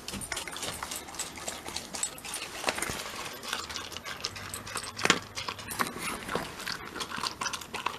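Shiba Inu eating dry kibble from a metal bowl: rapid crunching and clicking as it chews and the pellets knock against the bowl, with one louder click about five seconds in.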